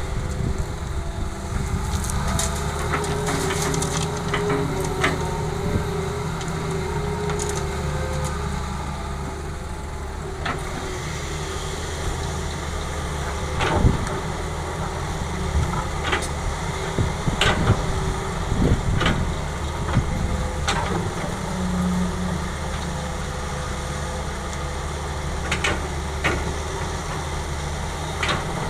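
Heavy machinery engine running steadily, with scattered sharp knocks and clatter of rocky soil and stones dropping from an excavator bucket into a dump truck's steel bed.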